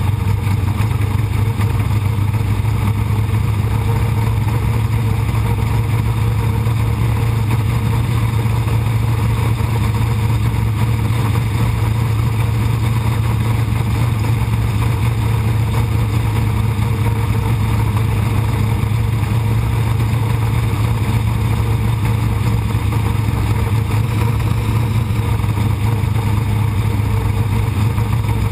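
Sprint car engine running steadily at racing speed, heard from a camera inside the car's cockpit, with rushing wind noise over it.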